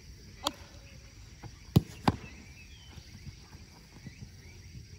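Three sharp thumps of a football being struck during goalkeeper training. One comes about half a second in, then a quick pair about a third of a second apart near two seconds, the first of the pair the loudest.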